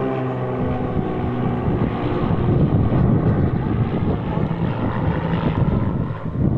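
Propeller airplane engine running with a steady low drone.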